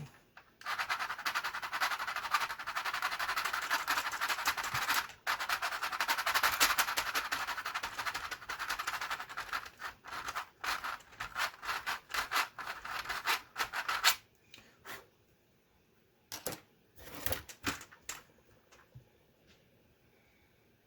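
Rapid plastic rasping and clicking from Commodore 64 keyboard key parts being worked, steady for about thirteen seconds with one brief break, then a few separate clicks and quiet. A key was just found dragging and rough, and the parts are being worked to free it.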